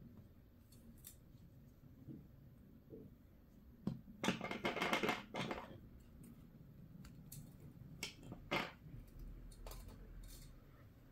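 Hands handling crochet tools, wire and yarn on a tabletop: scattered small clicks and taps, with a denser run of louder scraping and clicking about four seconds in that lasts a second and a half.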